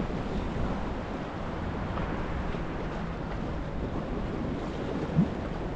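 Steady rush of sea waves washing against a concrete breakwater, with wind on the microphone. A short thump about five seconds in.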